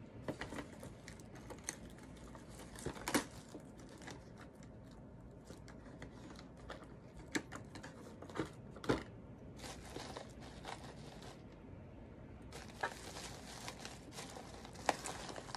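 Tissue paper and plastic packaging crinkling and rustling as hands pack a small shipping box, with scattered light taps and clicks.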